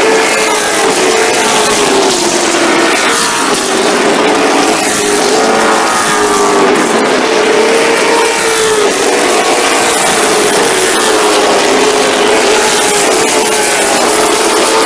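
A field of short-track stock cars racing at speed around a paved oval, several engines at once, their notes rising and falling as the cars go by.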